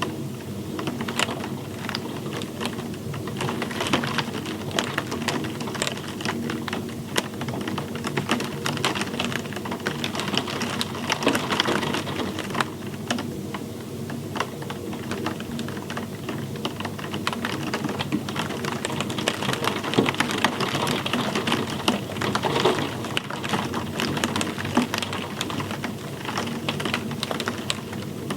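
Steady rain with dense, irregular drops ticking and pattering on a hard surface.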